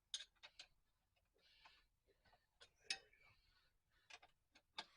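Faint, irregular clicks and ticks of a wrench working on a bolt being loosened, the loudest about three seconds in.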